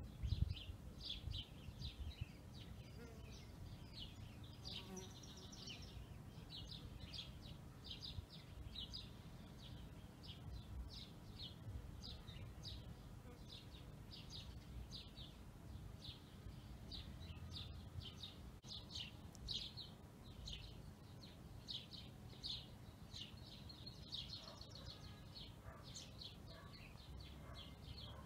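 Faint outdoor birdsong: a small bird chirping over and over, about two or three short high chirps a second, over a low background rumble.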